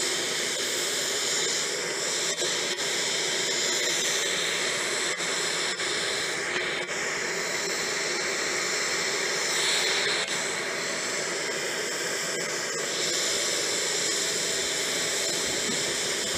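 Aircraft jet turbine running steadily on the ramp: an even hiss with a high whine.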